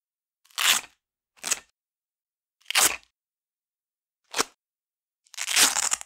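Velcro hook strips ripped one at a time off a loop-fabric-covered rolling pin: five separate rips. The fourth is very quick, and the last, near the end, is slower and longer, close to a second.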